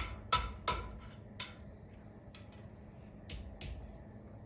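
Blacksmith's hammer tapping hot iron over the horn of an anvil, bending the bar into a hook. Three quick blows come in the first second and another about a second and a half in. A pair of lighter taps follows after three seconds.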